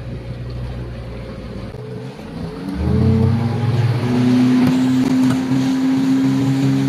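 Mercury FourStroke outboard motor running low, then opening up about three seconds in to a louder steady drone whose pitch creeps slowly upward as the boat gets under way towing a banana boat.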